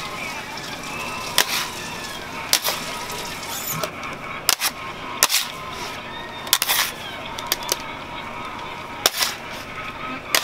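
Metal bench scraper knocking and scraping on a marble candy slab as a warm mass of hard candy is lifted and folded over, a sharp knock every second or so at an uneven pace.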